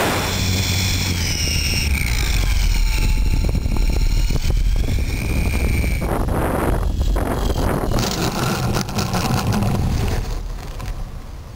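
Wind buffeting the onboard camera's microphone on a GWS Slow Stick electric RC plane in flight, with the motor's whine gliding up and down in pitch as the plane comes down to land on pavement. The noise drops away about ten seconds in, once the plane has come to rest on the ground.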